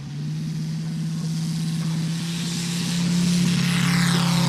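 A 250 cc five-cylinder Moki radial engine in a large radio-controlled Boeing Stearman biplane model, running at high power for the takeoff. The engine note rises in pitch right at the start and grows louder as the model lifts off and comes closer, loudest near the end.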